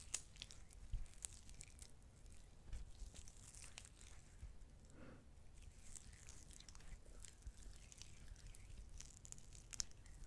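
Hands rubbing and squeezing together close to a microphone: faint, sticky skin-and-lotion sounds with scattered small crackles.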